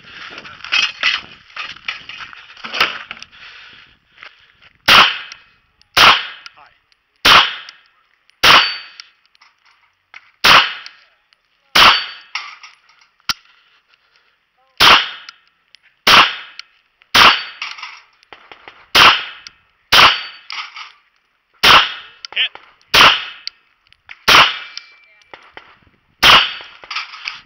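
EAA Witness Pavona .380 ACP pistol fired as single, slow-paced shots at steel plates, roughly one to two seconds apart, after a few seconds of rustling and handling noise. A few shots are followed by the brief ring of a hit steel plate.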